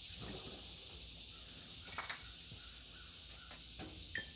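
Quiet background: a steady high-pitched hiss with a few faint clicks and knocks.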